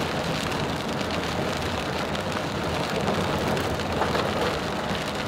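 Heavy rain pelting the windshield and body of a moving car, heard from inside the cabin, over the steady low rumble of the car on a gravel road.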